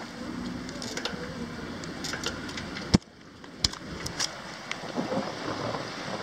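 Steady rushing noise of a penny-farthing being ridden along a street, with scattered sharp clicks and rattles. The loudest click comes about three seconds in, after which the noise drops for a moment.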